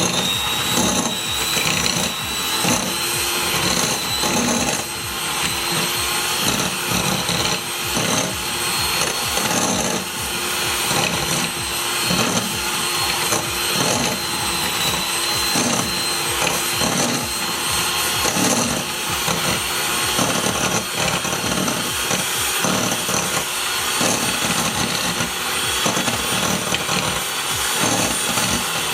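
Electric hand mixer beating butter in a bowl until soft. The motor holds a steady high whine, with uneven knocks and scrapes as the beaters move around the bowl.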